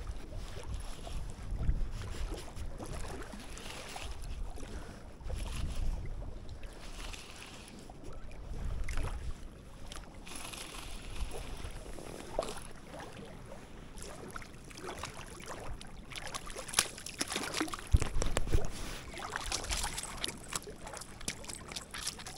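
Wind buffeting the microphone over water sounds at the lake edge, with scattered light clicks and one sharp knock about eighteen seconds in.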